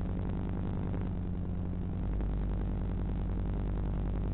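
A steady low buzzing hum with several fixed pitches, like a running motor, growing heavier in the bass about two seconds in.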